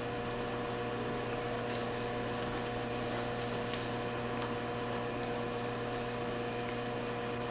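Steady low hum made of several level tones, with a few faint clicks and one sharp click about four seconds in.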